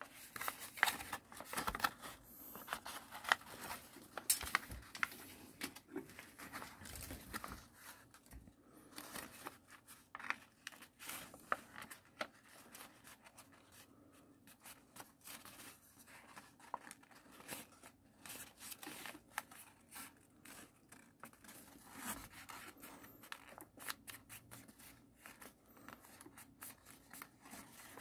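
A sheet of paper being folded and creased by hand into an origami model: a dense run of crackling and rustling as the paper bends and the folds are pressed flat, busiest in the first several seconds.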